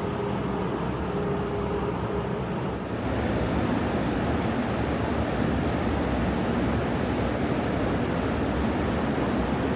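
London Underground train running at the platform, a steady noise that steps up a little in level about three seconds in.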